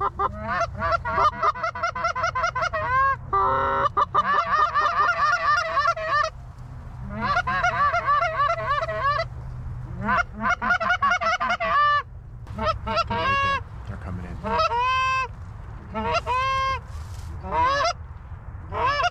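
Goose calls blown hard and fast: rapid strings of Canada goose clucks and honks in several bursts, with a short buzzy growl about three seconds in, calling to geese to bring them into the decoys.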